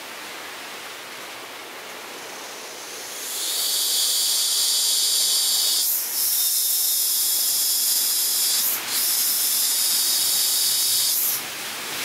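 A loud, high-pitched buzzing call from an unidentified animal comes in about three seconds in and holds for about eight seconds, broken twice by brief gaps, over the steady wash of sea surf.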